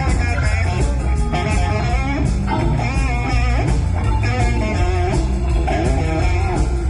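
Live blues-rock band playing an electric guitar solo, with bending lead notes over bass and drums.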